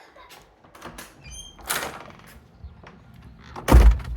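A door being handled: a few clicks, a brief squeak and a scrape, then one loud thump near the end as it shuts.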